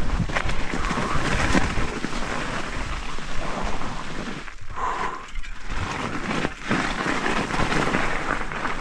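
Mountain bike rolling fast down a rough trail: tyres crackling through dry fallen leaves and over dirt, with many small clicks and knocks from the bike and a low rumble of wind on the camera microphone.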